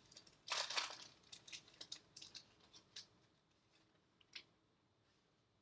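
Trading-card pack wrapping being torn open and cards handled: a quick run of faint crinkles and clicks that dies away after about three seconds, with one last click later.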